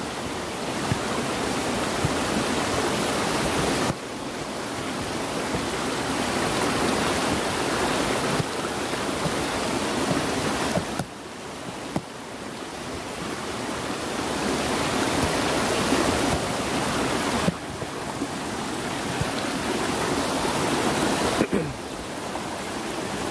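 Stream water rushing over a small rocky cascade, a steady white rush. Its level drops suddenly about five times and builds back up.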